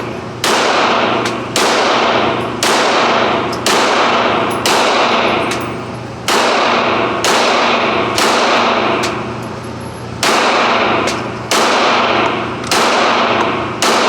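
Gunshots at an indoor shooting range, a steady string of about a dozen shots roughly a second apart with two short pauses, each shot ringing and echoing off the range walls.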